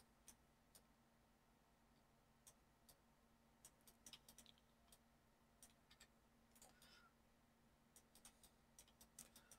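Near silence broken by faint, scattered clicks of a computer mouse and keyboard at irregular intervals, over a low steady hum.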